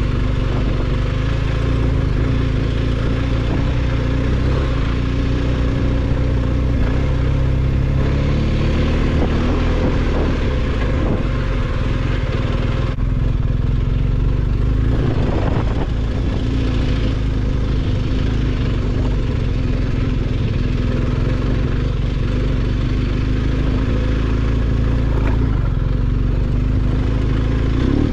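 BMW R1250GS boxer-twin engine running steadily under way, its pitch drifting only slightly. There is a short rough patch a little past halfway.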